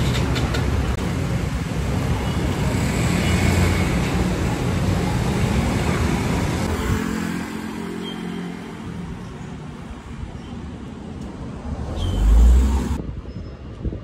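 The low, steady rumble of a ferry's engine under harbour noise, then road traffic, with a vehicle passing close and loudest near the end.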